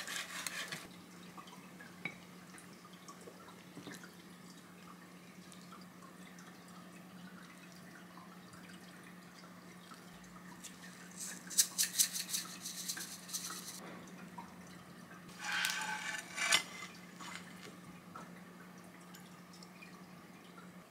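Knife finishing a cut through a kimbap roll on a wooden cutting board, then a quiet stretch under a low steady hum. About eleven seconds in comes a rapid run of light clicks, and a shorter clatter follows around fifteen seconds, as kimbap pieces are moved with wooden chopsticks into a ceramic dish.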